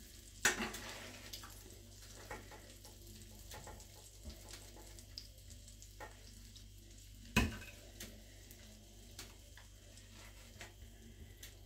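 Faint crackling of hot fat in a frying pan of freshly fried minced-meat patties as they are lifted out with a spatula, with scattered small ticks. A sharp click comes about half a second in and a louder knock about seven seconds in.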